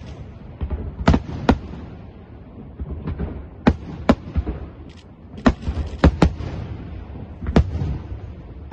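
Aerial fireworks shells bursting: a string of about eight sharp bangs at irregular intervals, over a low rumble.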